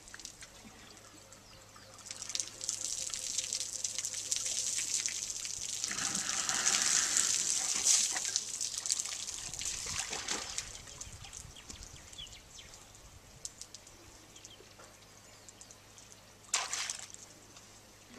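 Water splashing and trickling as an African elephant draws pool water with its trunk and drinks. It builds up over a few seconds, then eases off, with one short splash near the end.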